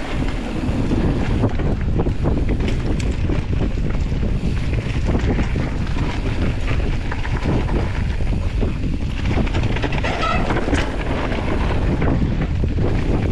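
Mountain bike descending a dirt singletrack: wind buffeting the microphone over a steady rumble of tyres on the trail, with frequent short knocks and rattles from the bike over the rough ground.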